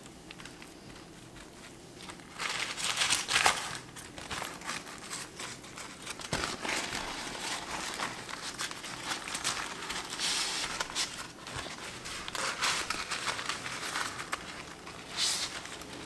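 Baking paper crinkling and rustling as hands wrap it and roll it tightly into a log. It starts about two seconds in and goes on as irregular crackles, loudest soon after it starts.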